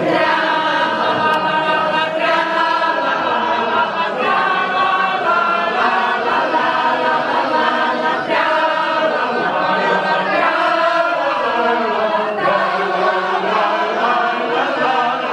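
A group of voices singing a Slovak folk song together, unaccompanied, in long held notes.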